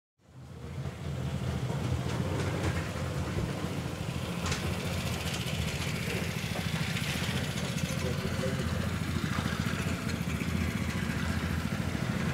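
Small motorboat's engine running steadily as the boat passes on the river, a low, even drone.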